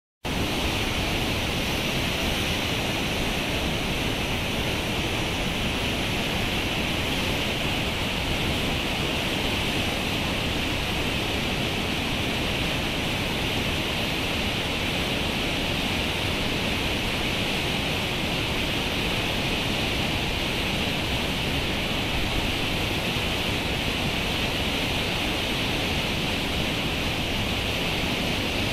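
The swollen, silt-laden Panjshir River rushing through rapids at high flow: a steady, unbroken rush of churning whitewater.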